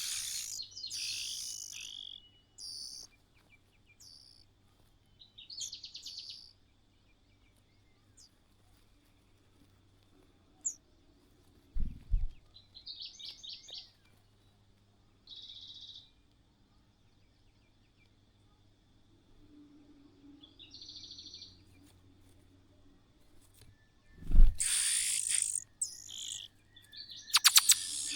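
Birds calling in short, scattered chirps with gaps between them, and a louder flurry of calls near the end. Two dull low thumps, one around the middle and one shortly before the flurry.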